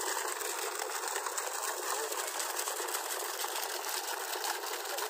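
Water gushing out of the delivery pipe of a newly installed submersible borewell pump on its first run. It is a steady, dense rush with a fast rattle of splashing in it.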